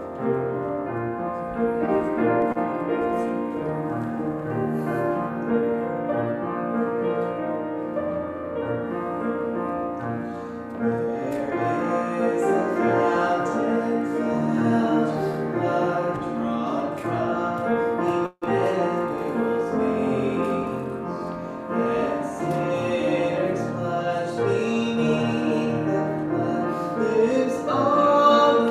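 A slow hymn played on a keyboard instrument in held chords, with singing voices seeming to join in from about halfway through. The sound cuts out for an instant about two-thirds of the way through.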